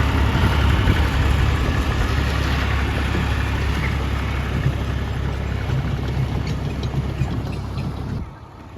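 An engine running steadily with a low rumble, which cuts off sharply about eight seconds in.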